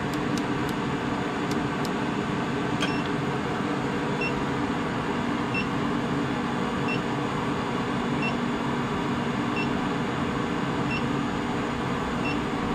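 A 25 kW induction forge heating a crucible of steel rivets in its coil, running with a steady electrical hum and fan noise. A few quick clicks come in the first seconds as the timer is set, then a short electronic beep about every second and a half while the heat cycle runs.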